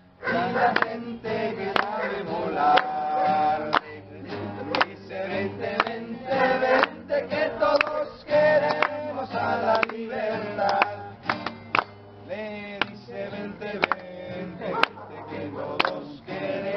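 Acoustic guitar strummed in a steady rhythm while a man sings, with other voices singing along.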